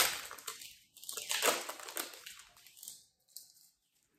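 Plastic wrapper of a Panini Contenders football card pack crinkling and tearing as it is handled and opened. It starts sharply in uneven rustling bursts and stops about three seconds in.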